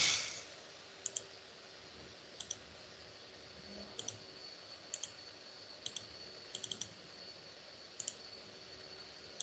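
Computer mouse clicking about nine times at uneven intervals, including a quick run of three about two-thirds of the way through, over a faint steady high-pitched whine.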